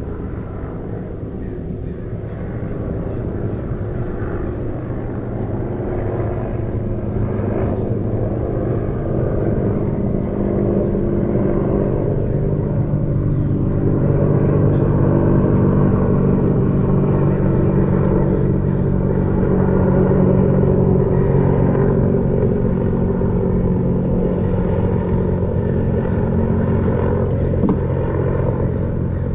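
A motor or engine running steadily with a low hum, swelling louder over the first half and then holding.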